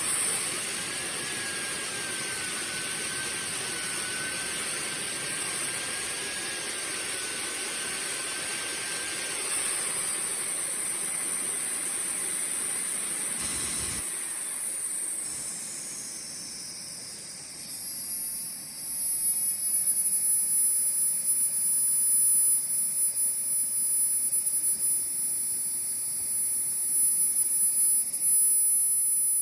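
Small model turbojet (Hammer 90+) running on a test after a service: a loud, high-pitched turbine whine over a rushing hiss. Its pitch shifts about a third of the way in and again past the middle, with the sound growing louder and more uneven toward the end as the throttle changes.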